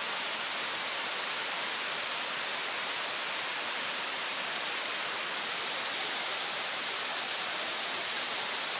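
Waterfall: falling water rushing in a steady, unbroken hiss at an even level.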